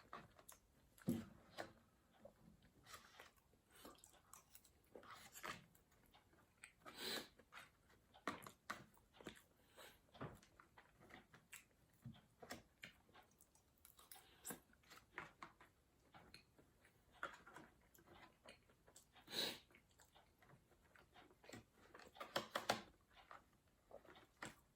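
A person chewing and biting food close to the microphone: irregular soft mouth clicks and smacks, a few louder ones near the end.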